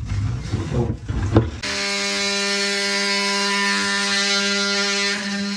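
An electric drain-cleaning machine running. For the first second and a half there is rough low rumbling and knocking, with a sharp knock about a second and a half in. Then it settles into a steady, even motor hum.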